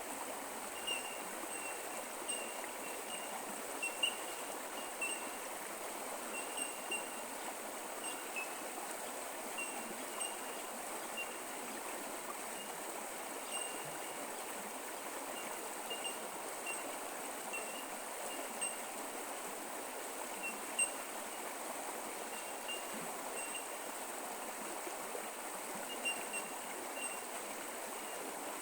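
Creek water flowing and trickling steadily over the stream bed, with many short, high chirps repeating irregularly above it.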